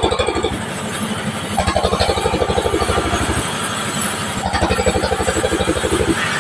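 Engine-driven sawmill saw cutting a large timber beam as it is fed along the table. The machine runs steadily, with a rapid pulsing beat that swells for about two seconds at a time and eases in between.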